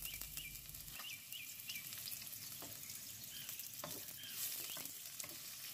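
Sliced onions sizzling faintly in hot oil with mustard seeds in a nonstick wok, with scattered sharp crackles. In the second half a spatula stirs them through the oil.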